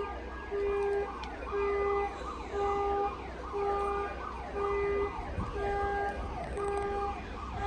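Car alarm sounding, a steady electronic tone switching on and off about once a second, over and over.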